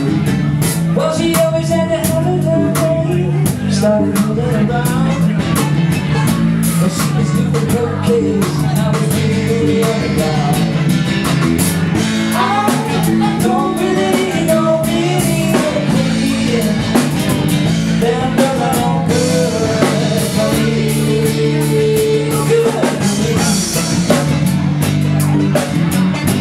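Live rock band playing: a man singing lead into a microphone over strummed guitars, with a drum kit keeping a steady beat.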